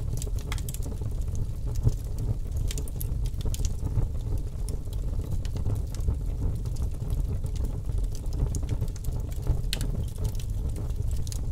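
Fire burning: a steady low rumble with scattered sharp crackles and pops.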